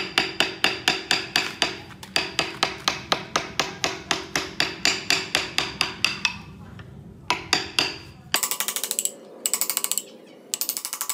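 Mallet striking a carving chisel into wood, in steady taps about four a second. After a short pause come a couple of single strikes, then faster runs of rapid taps in quick clusters.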